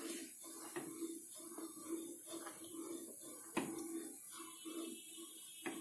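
Wooden spatula stirring thickening custard in a saucepan: a faint, steady scraping rhythm of about two to three strokes a second, with three sharper knocks of the spatula against the pan.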